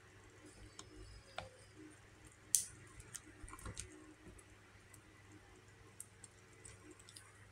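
Chopsticks clicking and tapping against a plastic tub of raw fish: a few scattered sharp clicks, the loudest about two and a half seconds in, over a faint steady low hum.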